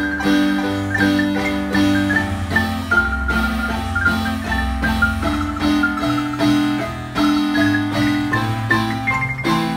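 Large wooden marimba with wooden box resonators, played by four players at once: a melody of rapidly re-struck, rolled notes in the upper range over repeated chords and sustained bass notes.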